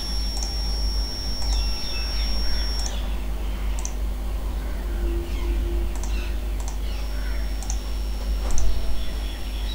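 Computer mouse clicks and scattered short ticks over a steady low hum, with a thin high-pitched whine that stops about three seconds in and returns about seven seconds in; a brief louder noise comes near the end.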